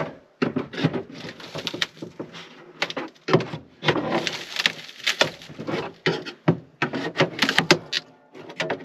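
Irregular clatter of knocks, clicks and scrapes as a propane RV fridge and its cabinet trim are worked on by hand and with tools, the fridge still partly held in its cabinet.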